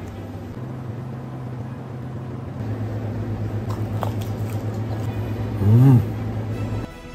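A man humming a low, closed-mouth "mmm" while chewing a mouthful of sushi. About six seconds in comes a louder "mmm!" that rises and falls in pitch.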